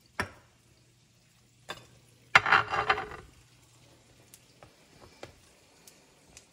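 A glass container being handled and set down on a granite countertop among glass jars: a sharp click, a knock, then a loud clatter of glass and stone lasting about a second, followed by a few faint ticks.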